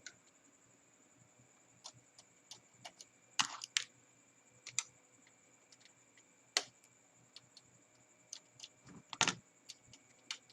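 Screwdriver and small tool clicks and taps on the screws and plastic chassis of a Panasonic stereo as its circuit board is unscrewed: scattered small clicks, with louder knocks about three and a half, five, six and a half and nine seconds in, over a faint steady high whine.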